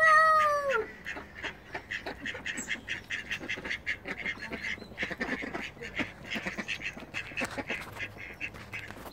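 Grey squirrel eating seeds right at the microphone: a rapid, irregular run of small cracks and clicks as it chews and husks them. It opens with one loud, slightly falling call lasting under a second.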